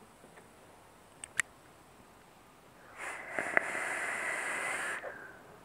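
A two-second draw on a rebuildable dripping atomizer (Kennedy clone with a 0.8-ohm kanthal coil): a steady airy hiss of air pulled through the airflow over the firing coil, with a thin whistle in it. A small click comes just before, about a second and a half in.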